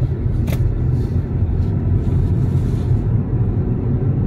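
Steady low rumble of a car moving at road speed, heard from inside the cabin: engine and road noise, with a short click about half a second in.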